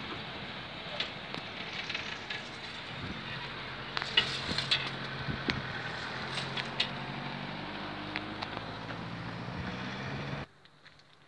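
Freight train rumbling past a level crossing, with scattered clicks and crackles. A low hum starts about three seconds in and rises slightly in pitch. Everything cuts off abruptly near the end.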